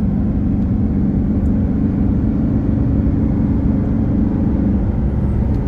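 A car driving at highway speed, heard from inside the cabin: a steady mix of road and engine noise with a constant low hum.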